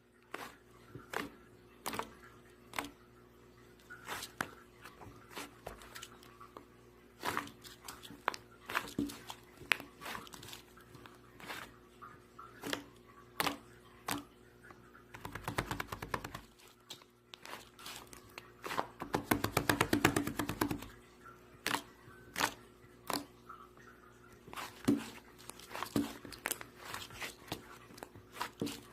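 Fluffy slime being squeezed and poked by hand, making scattered sharp clicks and air-bubble pops, with a fast run of crackling pops about two-thirds of the way through.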